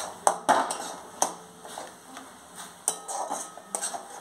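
Spatula stirring and scraping thick masala paste in a metal kadai, with several sharp knocks of the spatula against the pan, the strongest about a third of a second in.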